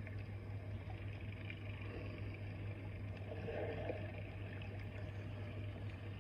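A steady low mechanical hum under a faint even hiss.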